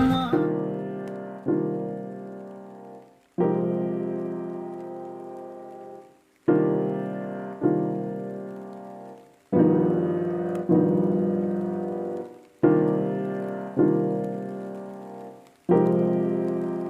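Slow background piano music: sustained chords struck about every three seconds, often with a second chord a second later, each left to ring and fade.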